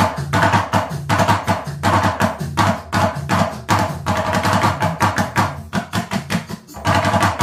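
Kasoora, a small Iraqi clay-bodied hand drum, played with fast strokes of both hands, sharp accents about twice a second with quick rolls between. It plays along with a recorded southern Iraqi percussion rhythm.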